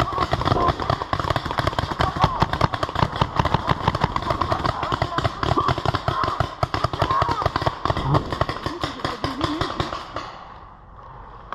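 Paintball markers firing in rapid strings of sharp pops, with faint distant shouting mixed in. The firing thins out and stops about ten seconds in.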